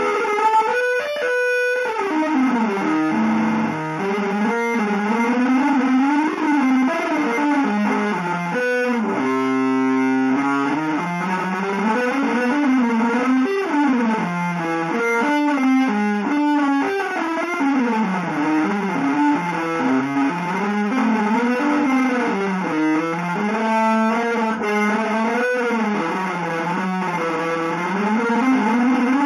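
Electric guitar played through effects with some distortion, in a free improvisation without a melody: notes slide and bend up and down in pitch almost continuously, broken by a couple of fast stuttering flurries.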